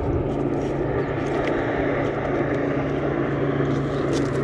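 Small Mercury outboard motor idling steadily with an even hum. A few light clicks come near the end.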